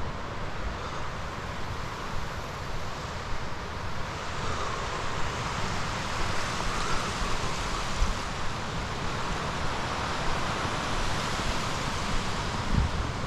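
Snowstorm wind buffeting the microphone, a steady rushing noise with uneven low rumbling gusts.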